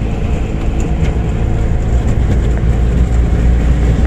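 Auto-rickshaw's engine running steadily as it drives along, heard from inside the open cab, a constant low drone with road noise.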